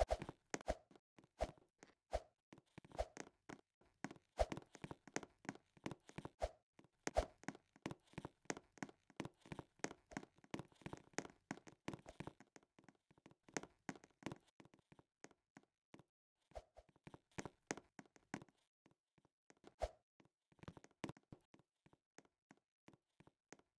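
Irregular sharp knocks and taps, often several a second, with a short lull about two-thirds of the way through.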